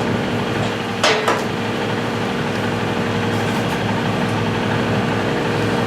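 A steady mechanical hum holding a constant pitch, with one sharp knock about a second in.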